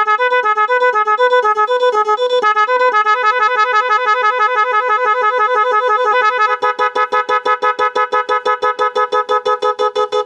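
Pressure horn sounding a two-tone pattern, switching back and forth between a higher and a lower note. About three seconds in it changes to a single pulsing tone, which from about six and a half seconds becomes a fast stutter of roughly eight blasts a second.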